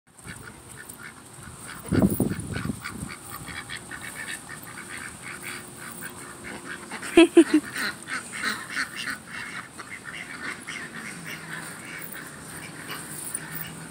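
Domestic white ducks quacking as they are chased, loudest in a burst about two seconds in and a quick run of three quacks about seven seconds in.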